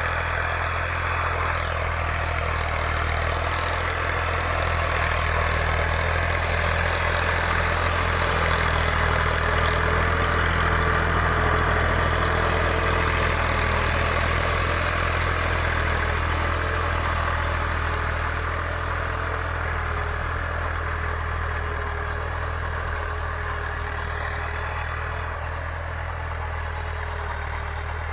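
Fiat 480 tractor's three-cylinder diesel engine running steadily under load while pulling a tillage implement. It grows louder as the tractor passes close by around the middle, then fades as it moves away.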